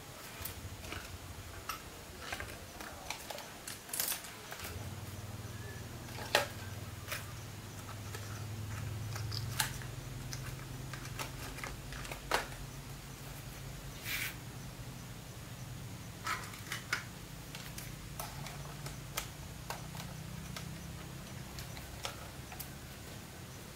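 Scattered light clicks and taps, with a low steady hum that starts about five seconds in.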